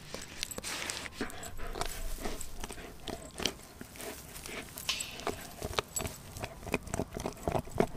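Doberman gnawing on a raw frozen pig's foot: irregular crunching and sharp clicks of teeth on bone and frozen skin, coming more often near the end.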